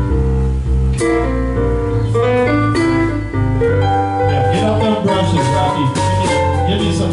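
A live blues band playing, with electric keyboard chords loudest over an electric bass line, drums and cymbal strikes.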